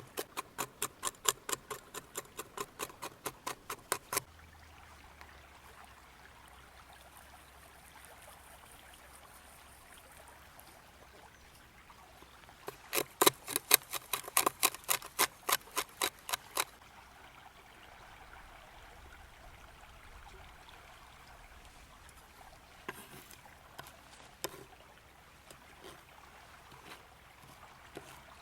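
A river flowing steadily, with two spells of quick rhythmic tapping strokes, about five a second: one at the start that stops about four seconds in, and a louder one from about 13 to 16 seconds. A few scattered ticks come near the end.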